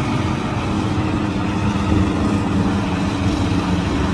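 Combine harvester's diesel engine running steadily, a constant hum over a low rumble.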